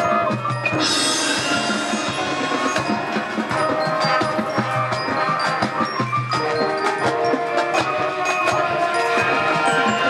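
Marching band playing its field show, with the front-ensemble percussion prominent: sharp, dry clicking strikes and struck mallet notes over held chords. A bright, shimmering wash comes in about a second in.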